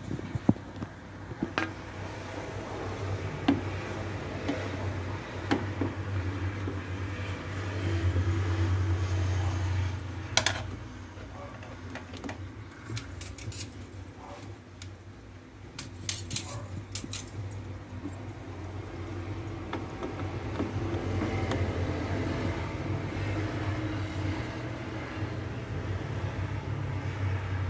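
Scattered metallic clicks and clinks of tools and screws on the air conditioner's sheet-metal condensing-unit cover as it is being taken off, with a cluster of clinks about halfway through. A steady low hum runs underneath.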